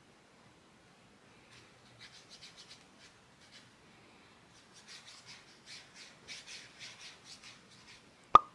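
Dry watercolour brush scrubbing across rough, grainy watercolour paper in quick short strokes, two runs of scratchy rasps. Near the end comes a single sharp click, the loudest sound.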